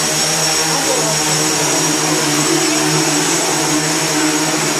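X8 coaxial octocopter's eight brushless motors and propellers buzzing steadily as it hovers, with a steady hum and several tones above it wavering slightly as the motors adjust.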